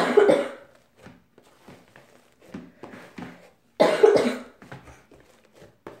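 A person who is a bit sick coughing: a double cough at the start and another about four seconds in. Between the coughs come faint sticky pops and squelches of a hand pressing fluffy slime with styrofoam beads.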